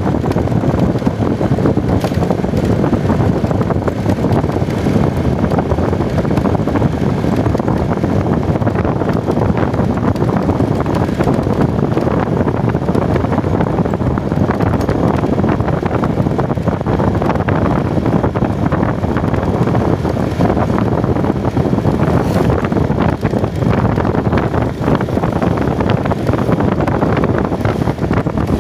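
Heavy wind buffeting the microphone during a ride on a moving vehicle, a steady, loud rush with a vehicle's running noise underneath.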